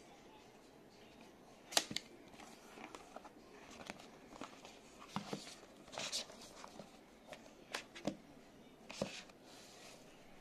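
Cardboard and paper packaging of an Apple Watch box being handled and opened by hand: a scattering of faint clicks, taps and short rustling scrapes, the sharpest about two seconds in and again near eight and nine seconds.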